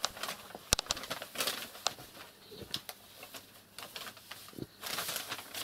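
Large sheets of paper crackling and rustling as a kitten pounces on them and tears at them: a string of short, sharp crackles with a longer rustle near the end.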